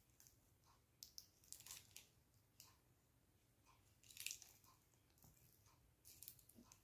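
Near silence, broken by faint, scattered soft crackles and clicks of close-up handling as a liquid concealer wand is worked over the face.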